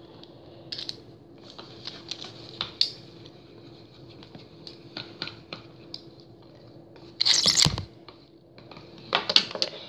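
Close-up plastic clicking and scratching as a toy launcher with a toothed ripcord is handled, with a loud rasping burst lasting about half a second, about seven seconds in, and a quick cluster of clicks near the end. A faint steady hum sits underneath.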